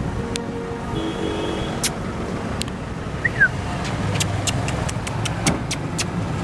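Street traffic noise: vehicle engines running with a steady low rumble. A quick string of sharp clicks comes about four seconds in.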